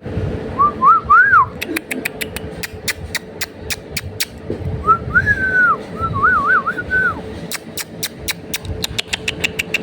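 Budgerigars calling: short warbling whistled phrases that rise and fall, near the start and again in the middle, between runs of sharp, rapid ticks, over a steady hum.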